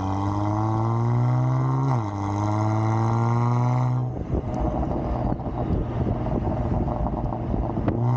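Kia Stinger GT2's twin-turbo V6 pulling hard, its pitch climbing, dropping at an upshift about two seconds in and climbing again. About four seconds in the steady engine tone gives way to an uneven rumble, and a steady engine tone returns near the end.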